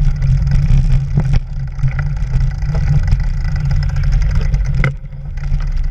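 Mountain bike riding over a dirt trail patched with snow and leaves: a loud, steady low rumble with scattered rattles and clicks, and a sharp knock just before the five-second mark.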